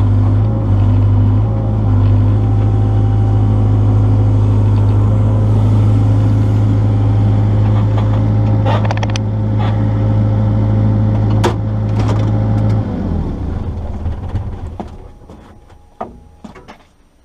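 Excavator's diesel engine running steadily with a few sharp metal clanks, then shut off about thirteen seconds in and winding down to quiet.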